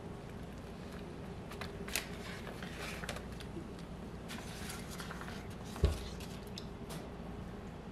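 Puff pastry being folded and pressed by hand on a sheet of paper: soft rustling and crinkling of the paper, with one dull knock about six seconds in.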